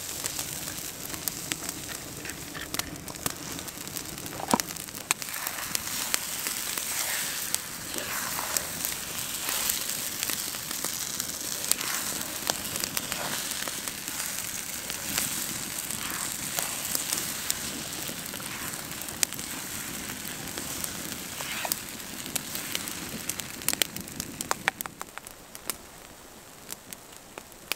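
Eggs and hash browns frying in a small pan over a campfire: a steady sizzle with the wood fire crackling and popping. It all drops quieter near the end.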